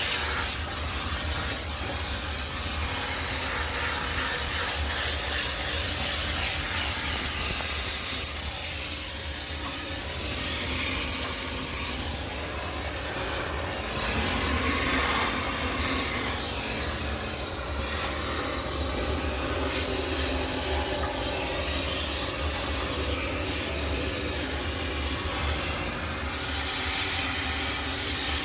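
High-pressure steam cleaner hissing as it sprays steam to sterilise a laundromat washing machine, its hiss swelling and easing as the spray is worked, over a steady low hum.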